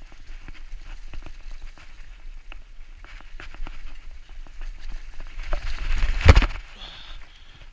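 Mountain bike rattling and knocking as it rides over a bumpy dirt trail, with tyre rumble and wind on the microphone. About six seconds in, the noise builds to one loud thump as the bike goes down in a crash.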